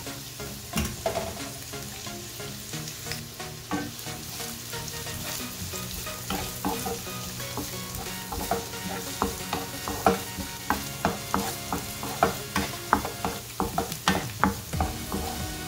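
Chopped onion frying in hot oil with garlic and ginger in a nonstick pan, stirred with a wooden spatula that knocks and scrapes against the pan. The knocks come quick and frequent through the second half.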